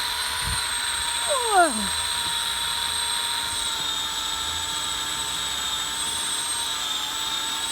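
A steady, high-pitched machine whine runs without change. About a second and a half in, one short falling whistle-like sound rises over it.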